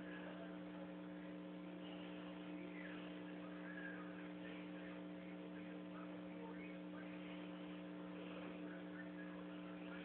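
Steady low electrical hum holding several even tones, with faint scattered rustles and small clicks from fingers handling a small brass cartridge.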